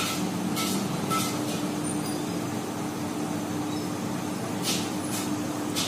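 Steady background hum with traffic-like noise, broken by a few short hisses near the start and again near the end.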